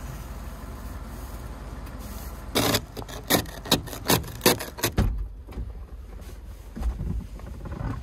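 Snow brush sweeping snow off a pickup truck's roof and window, then the plastic ice-scraper end scraping across frosted side-window glass in a quick run of about seven rasping strokes, the loudest part. A few low knocks near the end.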